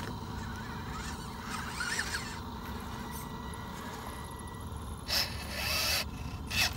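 Radio-controlled scale crawlers working over rock: small electric motors and gearboxes whirring faintly, with two short louder bursts about five and six seconds in.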